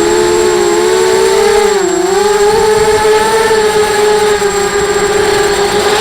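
Brushless motors and propellers of a 250-size FPV racing quadcopter whining steadily. The pitch dips briefly about two seconds in as the throttle is eased, then rises back.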